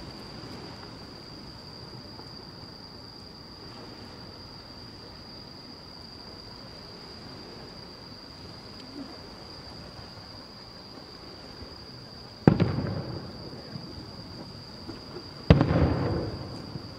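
Two aerial firework shells bursting about three seconds apart, each a sharp boom followed by a rolling, echoing rumble; the second is slightly louder.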